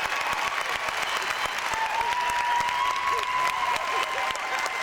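Large theatre audience, about 850 people, applauding steadily in a standing ovation, with a few long high calls from the crowd rising above the clapping.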